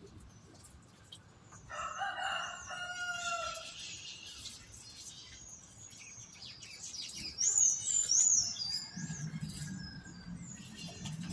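A rooster crows once, about two seconds in, a drawn-out call of about two seconds. Later small birds chirp in a quick series of high, rising-and-falling notes, the loudest sounds here.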